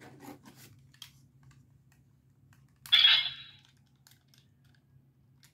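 Small plastic clicks from handling a DX Seiken Driver toy belt and its Wonder Ride Book. About three seconds in comes one loud, sharp clack that rings briefly.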